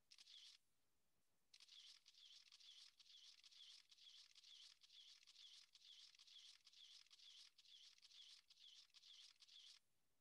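Faint scratching of a pen drawing lines on paper in quick repeated strokes: a short stroke at the start, a pause, then steady scribbling that stops shortly before the end.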